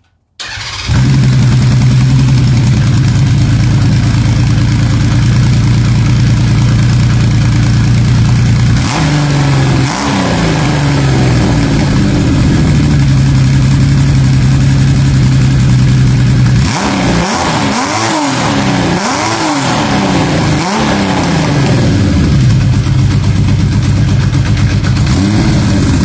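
Kawasaki KZ1300's inline-six engine, breathing through a Delkevic 6-into-1 exhaust, starts up and settles into a steady idle. The throttle is blipped twice about a third of the way in, then in a quick run of about four revs past the halfway point, and once more near the end.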